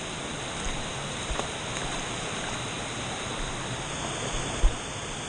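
Steady rush of a stream and waterfalls. A brief low thump comes near the end.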